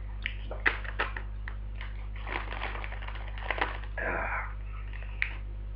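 A crisp packet crinkling and crackling as it is handled and turned over in the hands: sharp crackles in the first second or so, a longer rustle in the middle, and one sharp crack near the end.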